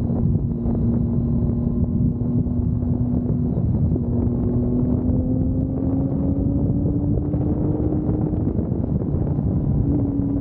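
A vehicle engine running at a steady speed, its hum slowly climbing in pitch, under heavy wind buffeting on the microphone.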